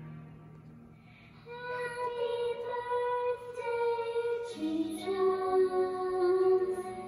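A young girl singing a slow song into a handheld karaoke microphone over a soft instrumental backing. Her voice comes in about a second and a half in with long held notes and gets louder near the end.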